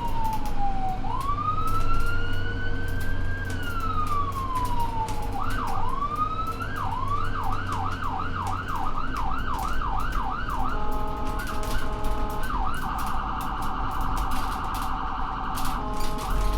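Ambulance's electronic siren switching through its tones as it drives. First a slow wail falls, rises and falls again. About five seconds in it changes to a quick yelp of about two sweeps a second, then to a hi-lo two-tone, a very rapid warble, and the two-tone again near the end, over the steady low hum of the vehicle.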